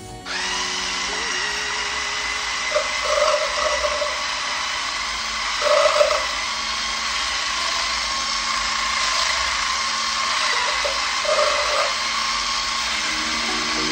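Electric hand blender with its whisk attachment running steadily while beating raw eggs in a plastic beaker. The motor has a thin, even whine that switches on right at the start, with a few brief louder spots as the whisk churns the eggs.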